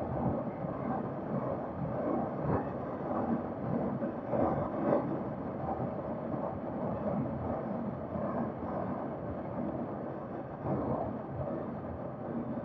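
Wind rushing over the microphone of a KTM RC390 motorcycle riding at highway speed, in uneven gusts, with the bike's road noise underneath.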